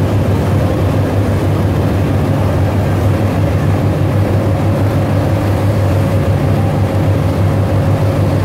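Multraship tugboat's engines running with a steady low drone at speed, over the rushing wash of the wake churning behind the stern.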